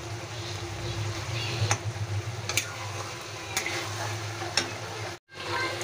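Spatula stirring a simmering capsicum, potato and brinjal curry in a kadai: a steady sizzle with a light tap of the spatula against the pan about once a second. The sound cuts out briefly near the end.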